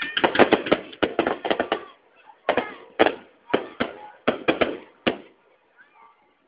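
Fireworks going off in a rapid string of sharp cracks. The cracks crowd together for the first two seconds, then come singly about every half second and stop about five seconds in.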